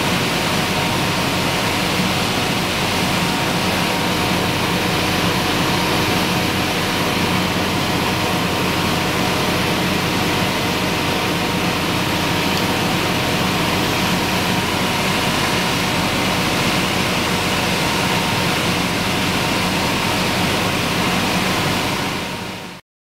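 Potato harvesting machinery running steadily: an even engine drone under a constant rushing noise, cutting off abruptly near the end.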